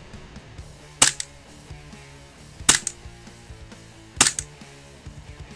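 WE G18C Gen 4 gas blowback airsoft pistol on green gas, fired three times on semi-auto about a second and a half apart. Each shot is a sharp crack with a quicker, smaller click just after it. Faint background music runs underneath.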